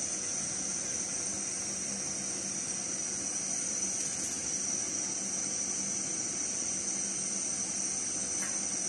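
Steady hiss from a portable gas-cartridge burner running under a pot, with a faint low hum and a faint click or two.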